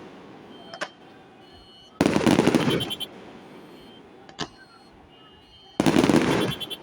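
Fireworks bursting: two loud booms, each followed by about a second of crackle, about two seconds in and near the end, with single sharp bangs about a second in and midway.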